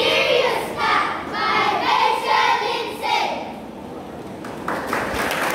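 A group of children's voices chanting the poem in unison for about three seconds; a second or so after they stop, an audience breaks into applause.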